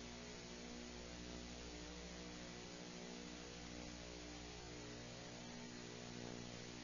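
Steady electrical mains hum with an even hiss underneath, unchanging throughout.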